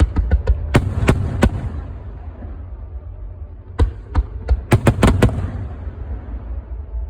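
Display fireworks bursting in two rapid volleys of sharp bangs, one at the start and another about four seconds in, over a steady low rumble.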